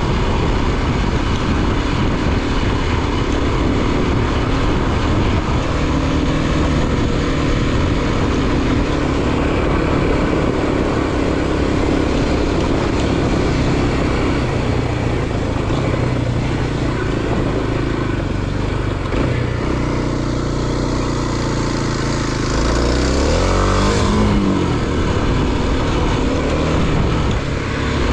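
Motor vehicle engine running steadily under loud road and wind noise. About 23 seconds in, the engine revs up and falls back again.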